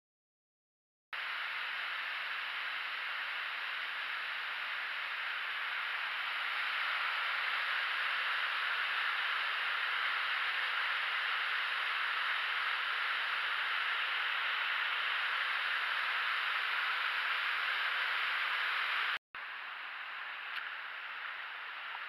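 Steady rushing hiss of a creek cascade's falling water, starting about a second in. It cuts off abruptly about 19 seconds in, and a quieter rush of stream water follows with a few faint clicks.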